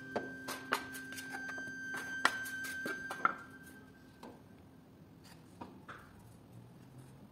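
Metal spatula scraping and tapping against a paste-laden hawk and the rims of paint pots while colours are loaded: a quick run of clicks and scrapes in the first three seconds, then a few scattered taps.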